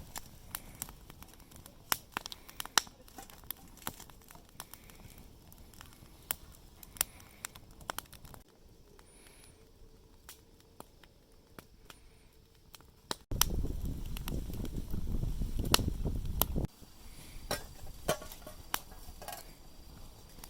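Wood campfire crackling, with scattered sharp pops and snaps. About two-thirds of the way in, a loud low rumble cuts in for about three seconds and stops just as suddenly.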